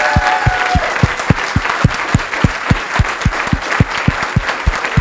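Audience applauding, with loud claps close by in a steady beat of about four a second.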